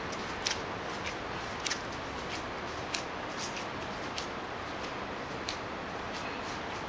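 Footsteps on a tiled path: short, sharp steps at a walking pace, about one every half second or so, stopping a little over five seconds in, over a steady background hiss.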